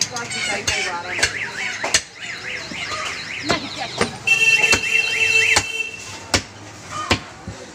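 A butcher's knife chopping beef, a series of sharp chops about one every 0.7 s. Under them a warbling electronic siren rises and falls from the street, loudest from about four to six seconds in.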